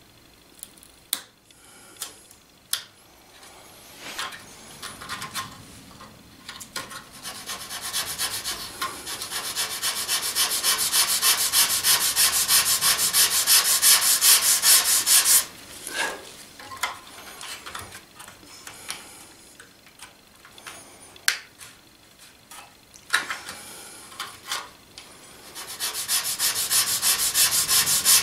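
Hand sanding of the wooden strip planking on a model sailboat hull: brisk back-and-forth rubbing strokes. It starts after a few sharp clicks, pauses for several seconds midway with only scattered clicks, and resumes near the end.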